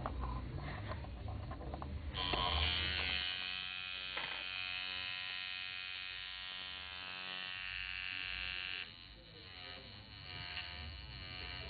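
Workhouse Bronze Gun II coil tattoo machine switched on about two seconds in, its armature buzzing steadily at a fixed pitch. About nine seconds in the buzz gets quieter and its pitch wavers up and down.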